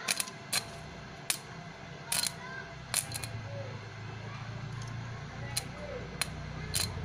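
Edon 450-watt electric stick welder striking its arc on a steel bar: about ten irregular sharp cracks and snaps as the arc catches only for moments instead of burning steadily. The owner says a 450-watt household supply is not strong enough, so the arc keeps snapping out.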